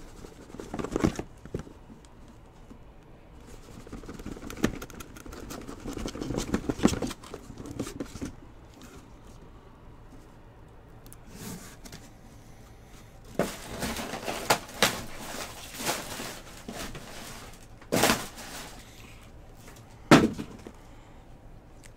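A cardboard shipping case of hobby boxes being opened and handled: cardboard scraping and rustling with scattered knocks, busier about two-thirds of the way through, then two sharp knocks near the end as the boxes inside are moved.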